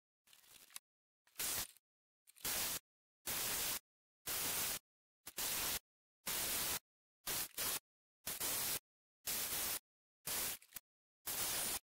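Power drill with a sanding pad sanding the inside of a river birch bowl on the lathe: a hissing grind in short bursts, about one a second, with dead silence between them.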